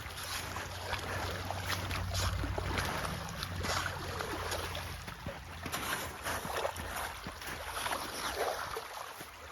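Meltwater and slush splashing and sloshing in a backed-up drainage ditch as the blockage is cleared, with many short irregular splashes and scrapes. A steady low rumble runs under it for the first six seconds or so, then fades.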